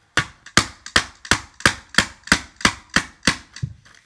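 A screwdriver rapidly beating on a small cardboard toy box with a plastic window: eleven sharp knocks at about three a second, stopping just before the end.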